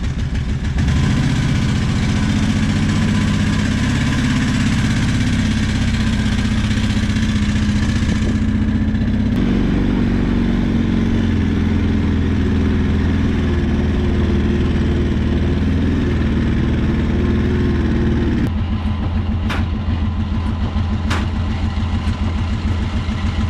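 Arctic Cat 650 V-twin ATV engine running steadily. Its sound changes about eight seconds in and again near the end.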